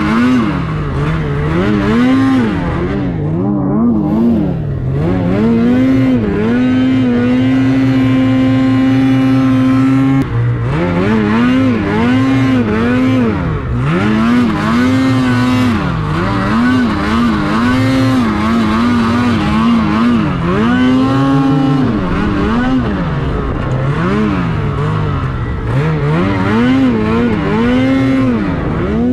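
Ski-Doo Freeride 146 snowmobile's 850 two-stroke engine being revved up and down over and over under throttle, with a few seconds of steady high revs held a quarter of the way in.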